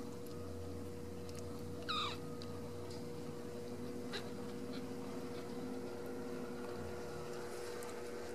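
A newborn Ragdoll kitten gives one short, high-pitched mew about two seconds in, over a steady background hum.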